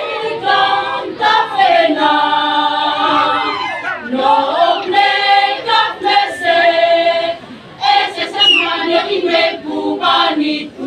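Women's village choir singing a song in a local language, with held notes in several voice parts. There is a brief break for breath about seven and a half seconds in.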